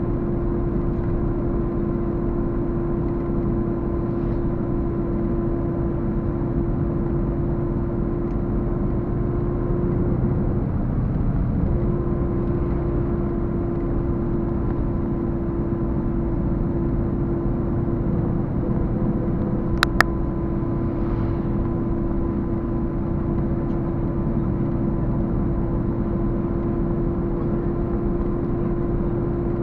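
Steady engine and road noise of a moving road vehicle heard from inside, with a constant drone that drops away for a moment about ten seconds in. About twenty seconds in, two sharp clicks close together.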